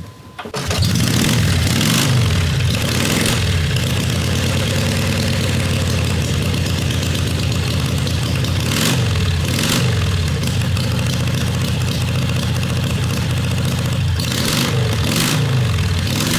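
A 1941 Harley-Davidson WLDR racing 45-cubic-inch flathead V-twin is kick-started and catches about half a second in. It then runs loud and steady with several blips of the throttle. The engine is so heavily cammed that it drops a cylinder at idle.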